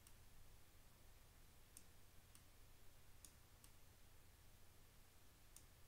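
Near silence with about five faint, sharp clicks of a computer mouse, spread a second or so apart.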